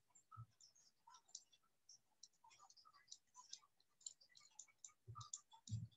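Near silence with faint, irregular clicking and tapping from a stylus on a pen tablet while handwriting on a digital whiteboard, plus a couple of soft low thumps near the end.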